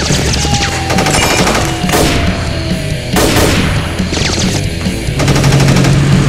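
Gunfire in a film shootout: rapid bursts of shots with several louder single shots standing out, over background action music.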